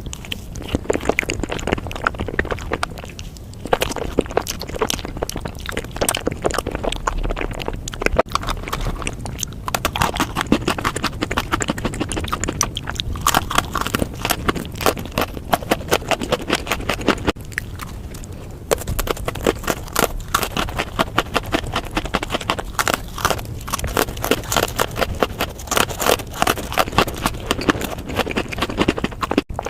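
Close-miked eating sounds: a dense, rapid run of sharp mouth clicks and crunches from chewing, with brief breaks between bites.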